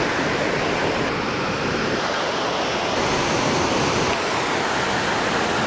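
Victoria Falls at peak flow: a steady, loud rush of falling water and heavy spray.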